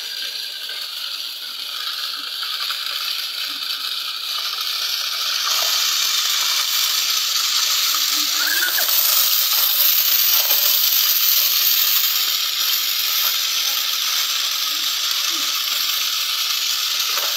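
Homemade toy tractor's small motor and belt-pulley drive running with a steady hissing whir that grows louder about six seconds in.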